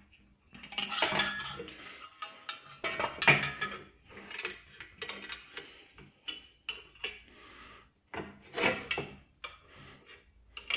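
Metal parts and hand tools clinking and rattling as a drill press column and cast base are handled and bolted together by hand: irregular knocks and clanks with short pauses between them.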